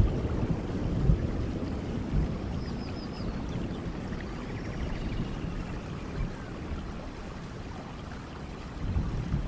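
Background nature soundscape of running water with a deep rumble that eases after the first couple of seconds, and a short run of four quick high chirps about two and a half seconds in.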